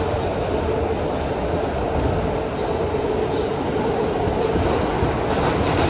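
R142 subway car running at speed through a tunnel, heard from inside the car: a steady rumble of wheels on rail with a faint steady tone running through it.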